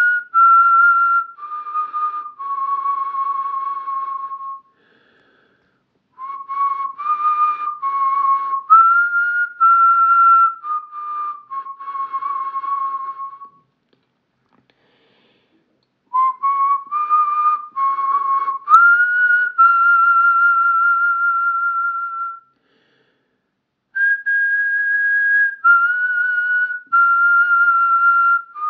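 A person whistling a slow melody, holding each note for about a second and stepping between pitches. The tune comes in phrases of several seconds, separated by three short pauses.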